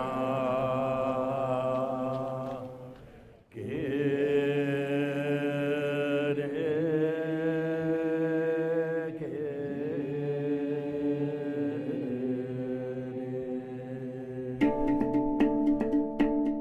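Background music of slow, sustained chanting with long held notes. It fades out about three seconds in, starts again with a new held chant, and near the end gives way to a different piece with a quick, steady pattern of struck notes.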